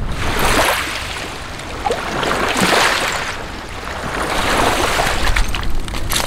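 Small waves washing in over a stony foreshore, three surges about two seconds apart, each swelling and fading away. A few light clicks near the end.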